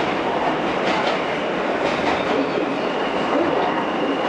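R160 New York subway car running at speed through a station without stopping, heard from inside the car: a steady rumble of wheels on rail with clicks over the rail joints about once a second. A faint high steady whine comes in over the last second or so.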